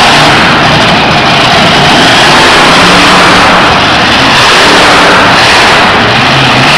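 Monster truck engine revving hard as the truck drives around the dirt arena floor. It is very loud and dense throughout, with the engine's pitch rising and falling a little.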